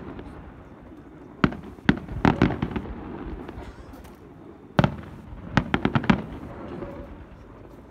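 Aerial fireworks shells bursting: two sharp bangs about a second and a half in, a quick run of crackling reports just after, a single loud bang near five seconds, then another rapid string of reports, with a low echoing rumble between them.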